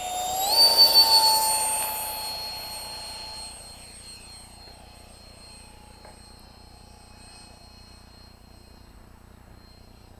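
Whine of a model L-39 jet's 68 mm electric ducted fan. It rises in pitch as the fan spools up to full throttle about half a second in and is loudest for a second or so. It then holds its pitch and fades away over the next few seconds as the plane takes off and climbs away.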